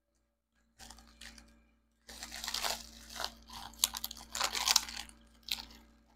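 Lip balm packaging crinkling and tearing as it is opened by hand: a few faint rustles about a second in, then steady irregular crinkling and tearing from about two seconds in until near the end.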